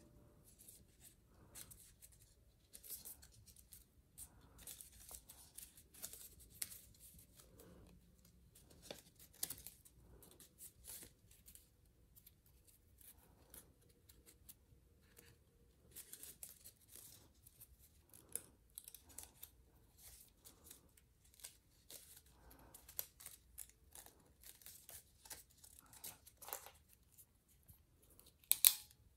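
A sheet of paper being folded and creased by hand into an origami model: faint, irregular crinkles and rustles as the folds are pressed, with a louder crackle of the paper near the end.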